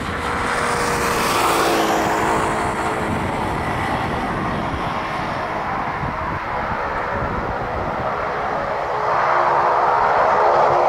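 Boeing 737-800's twin CFM56-7B turbofans running at high thrust as the airliner rolls away down the runway for takeoff: a loud jet roar with a tone that drops in pitch over the first couple of seconds, swelling again near the end.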